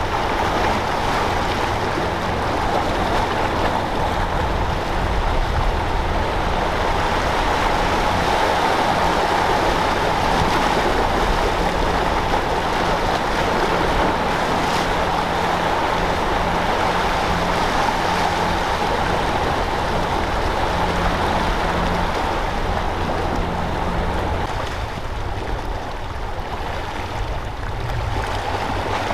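Steady waterside wash of wind and sea water along a rocky shore, with a faint low steady hum under it that stops a few seconds before the end.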